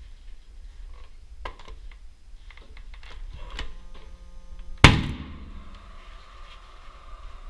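A TOUA GSN50 pneumatic brad nailer fires once about five seconds in, a single sharp shot driving a nail through ceiling molding, after a few light clicks and knocks as the molding is pressed into place.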